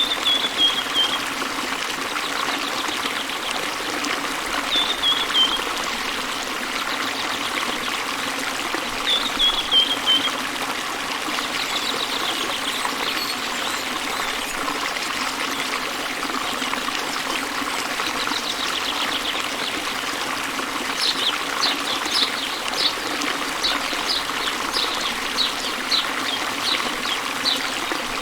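Small waterfall spilling into a river: a steady rush of flowing water, with birds singing over it in short falling phrases near the start and a run of quick high chirps in the last several seconds.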